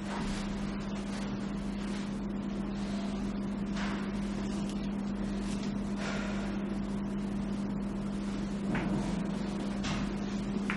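A steady low hum, with a few faint soft rustles and shuffles now and then, as bedding is tucked and someone moves.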